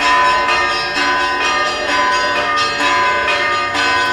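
Orthodox church bells ringing a festal peal: several bells struck over and over, about twice a second, their tones ringing on into one another.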